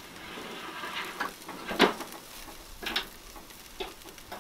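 Metal tongs and wire grill racks of a charcoal barbecue clinking together as the grill is put back and the meat moved, a handful of sharp clinks, the loudest about two seconds in. Chicken sizzles faintly on the coals underneath.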